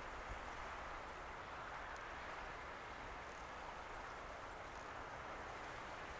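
Steady outdoor wind-and-water noise off choppy harbor water, with a low wind rumble on the microphone.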